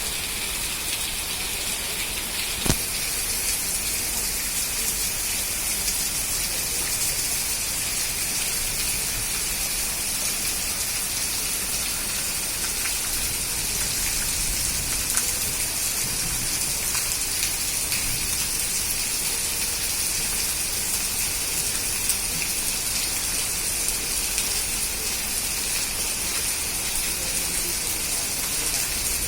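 Heavy rain falling steadily, a dense even hiss. There is one sharp click about three seconds in and a couple of fainter ones later on.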